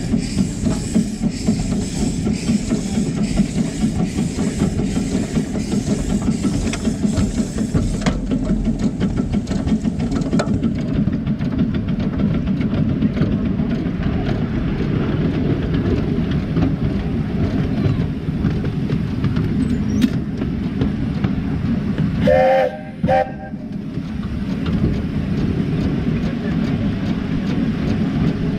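Miniature steam locomotive on 7¼-inch gauge track running steadily, with a continuous rumble and fine clicking of the wheels on the rails. About 22 seconds in, its whistle gives two short toots.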